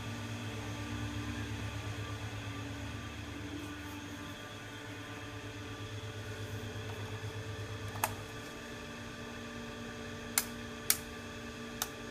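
A 48-inch CMC Niko industrial ceiling fan running with a steady, pulsing motor hum. The lowest part of the hum drops away about eight seconds in, and four sharp clicks come near the end.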